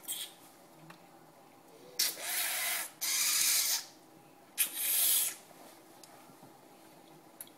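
Three hissing sucks of air and water through the teeth, each under a second long, as a freshly softened boil-and-bite mouth guard is pressed to fit in the mouth.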